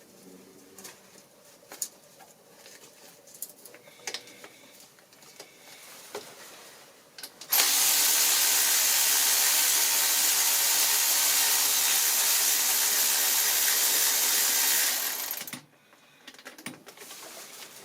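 A power tool runs steadily for about eight seconds, starting sharply and winding down near the end, most likely driving out fasteners on the distributor. Light clicks and knocks of tool handling come before it.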